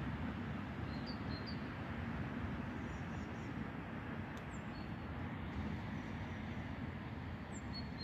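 Steady low rumble of a distant approaching freight train, an HŽ Cargo series 1141 electric locomotive hauling open wagons. A few faint short bird chirps over it.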